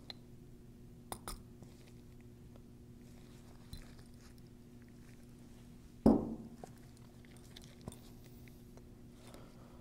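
Small clicks and clinks of metal Graco E-10 displacement pump parts being handled and fitted back together, with one louder dull knock about six seconds in.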